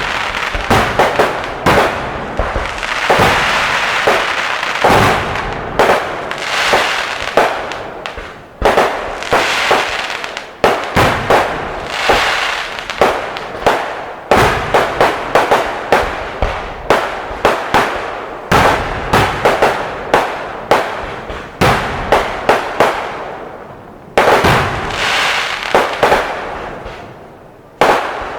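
Fireworks display: rapid volleys of sharp bangs and crackling bursts, one after another, with a fizzing hiss between the salvos. The barrage eases briefly a few times before picking up again.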